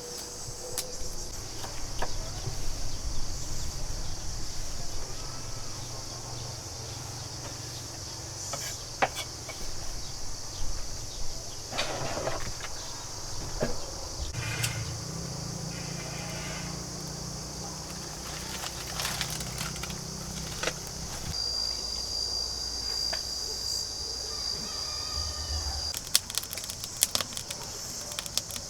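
Insects buzzing steadily outdoors, with one high, even note held for about four seconds past the middle. Underneath is a low rumble, and scattered clicks and knocks grow more frequent near the end.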